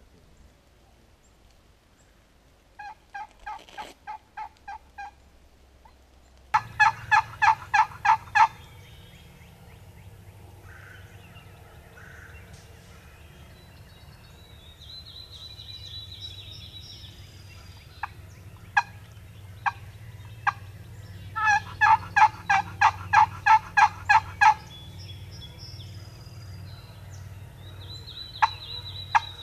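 Turkey yelping: three runs of evenly spaced, pitched notes, about three to four a second, the first faint and the later two loud, with single short sharp notes between the runs and a thin high bird call in the background.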